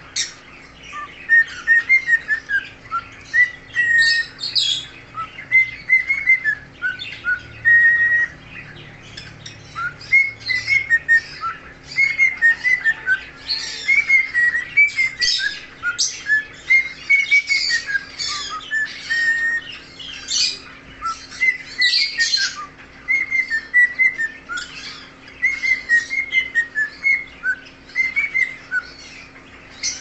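Cockatiel singing: a continuous warbling run of short whistled notes, broken often by sharper, louder chirps.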